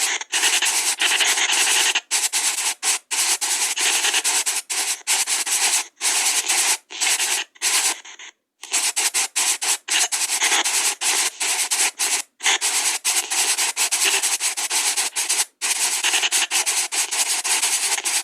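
Spirit box app's white noise hissing, chopped by frequent brief dropouts, with one longer gap about eight and a half seconds in.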